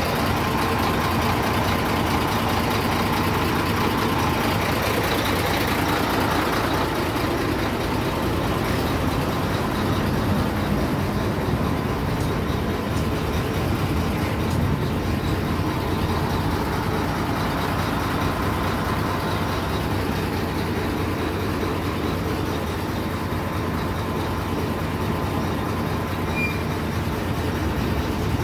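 Diesel engine of a 340 hp JAC tractor-trailer running steadily.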